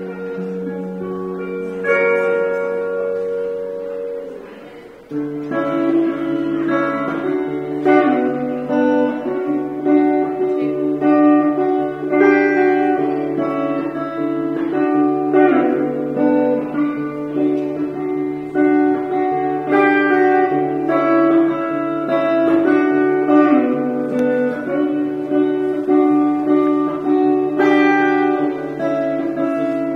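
Solo guitar music. A chord rings out and fades away, then about five seconds in a new passage of picked notes begins over a steady low drone.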